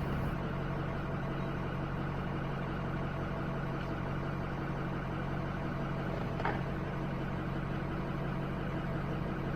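RV engine running steadily at an even pitch, with one faint click about six and a half seconds in.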